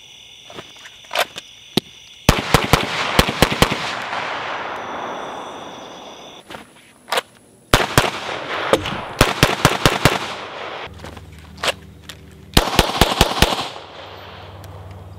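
Handgun shots fired in three quick strings of several rounds each, with echo trailing each string.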